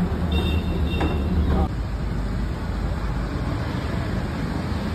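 Street traffic: a heavy vehicle's engine rumbles low for about the first second and a half, then fades to steady road noise.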